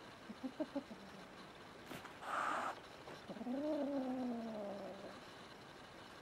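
A kitten threatening an older cat: a few short low sounds, then a short hiss, then one long low growling yowl that rises in pitch and falls away.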